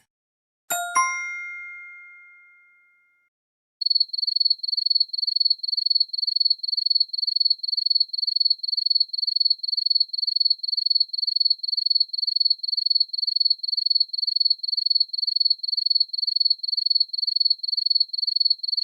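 A single bell-like ding that rings out and fades over a couple of seconds. It is followed by a high-pitched electronic beep repeating evenly, about two and a half times a second.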